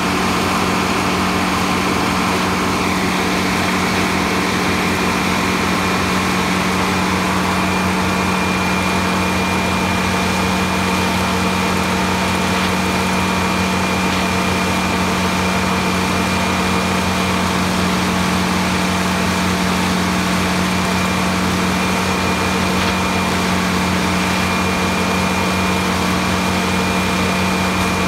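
Large circular sawmill running steadily, a constant machine hum with a thin high whine that comes in a few seconds in.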